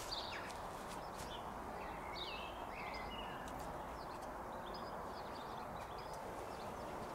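Small birds chirping on and off over a steady, quiet outdoor background noise.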